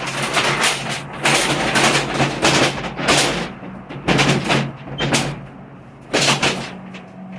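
Metal accordion shutter blades being worked along their track, giving loud rattling, scraping bursts about seven times with short pauses between, over a faint steady hum.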